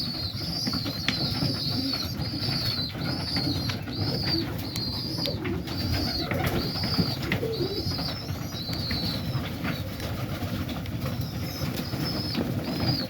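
Young pigeon squabs peeping in the nest: a steady run of short, high squeaks about two a second, pausing briefly near the end. Under them is a low rumble of pigeon cooing.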